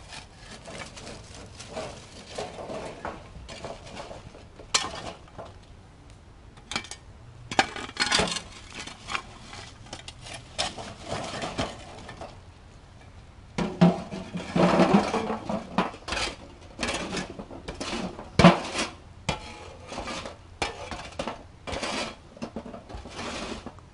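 A steel shovel scraping up and dumping lit charcoal briquettes, the coals clinking and clattering against one another and the metal trash can in an irregular run of scrapes and knocks. The sounds are loudest in a cluster a little past the middle.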